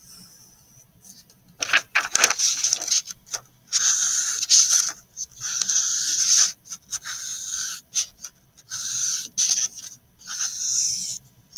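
Felt-tip marker drawn across paper in a series of scratchy strokes, each lasting from half a second to about a second with short gaps between, as lines are traced over.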